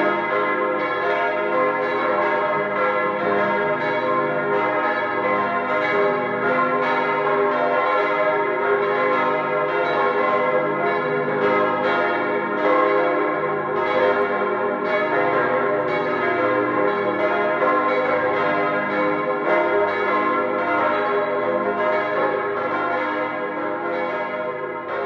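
Several church tower bells ringing together in a continuous overlapping peal, the strikes coming in quick succession. The peal starts to fade near the end.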